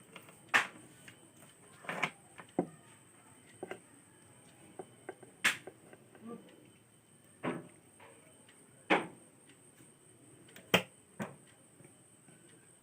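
Irregular sharp clicks and light knocks from small hard parts being handled and set down, about nine in all with gaps of one to two seconds.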